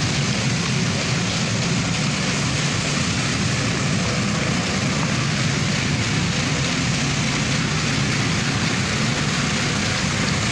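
Steady drone of an engine or motor running at an even pace, with no change in level.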